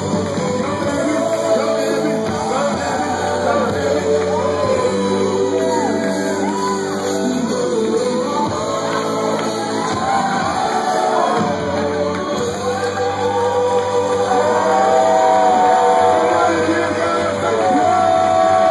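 Live praise music with a keyboard holding steady notes under voices singing, and shouts and whoops from the dancing crowd.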